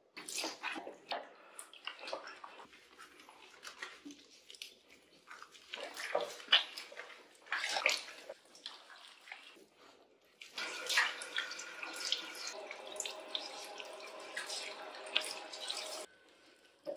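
Water splashing as it is poured and rubbed over a cat's wet fur by hand, in uneven bursts. Then a steady stream of running water for about five seconds, which cuts off suddenly near the end.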